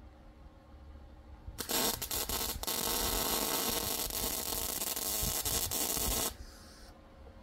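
Electric welding arc crackling and hissing. It starts with a few short spurts, then burns steadily for about four seconds and stops abruptly, leaving a faint hiss for a moment.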